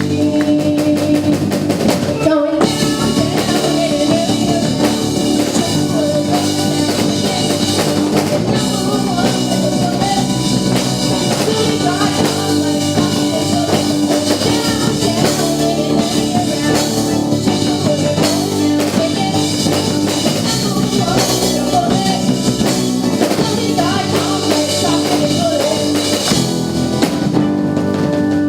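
Live rock band playing a song, with a drum kit keeping the beat under amplified instruments.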